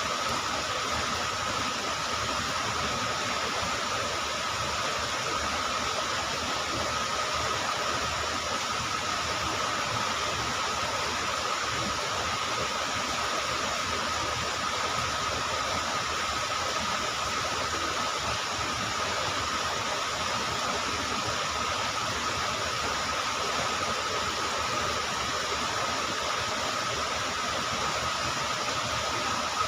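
Steady rush of flowing river water, an even noise that holds constant throughout, with a thin steady high whine over it.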